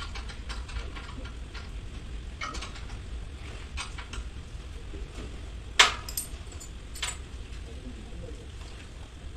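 Metal tools and parts clinking and tapping on the steel lid of a transformer tank, with one sharp, loud clank about six seconds in and a smaller one about a second later. A steady low hum runs underneath.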